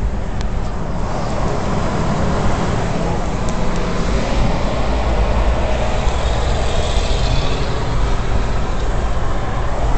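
Steady road and wind noise of a car travelling at highway speed, heard from inside the car.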